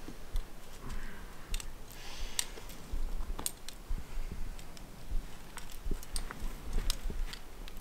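Irregular small clicks and scuffs of a trad climber moving up a sandstone crack: climbing gear clinking on the harness and hands and shoes on the rock, over a low rumble.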